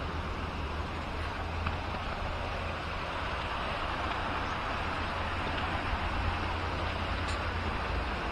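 Wind rushing over the microphone of a camera on a moving bicycle: a steady rush with a heavy low rumble.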